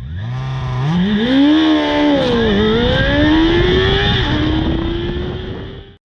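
Honda CB400 four-cylinder motorcycle engine accelerating hard with a slip-on muffler, revs climbing and then dropping sharply at two gear changes, about two and a half and four seconds in. It cuts off abruptly at the end.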